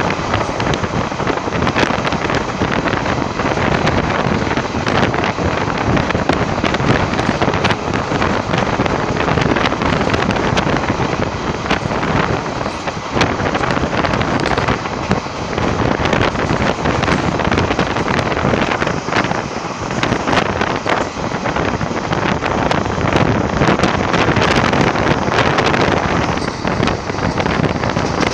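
Wind rushing over the microphone from the doorway of a moving passenger train, with the wheels rattling and clicking over the rails underneath. The noise is loud and continuous, dotted with sharp clicks throughout.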